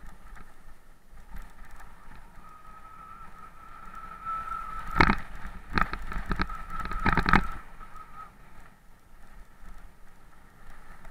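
Mountain bike descending a rough dirt and gravel trail, a steady high whine running under the ride noise. About five seconds in comes a run of sharp knocks and clatter lasting about two and a half seconds as the bike rattles over bumps.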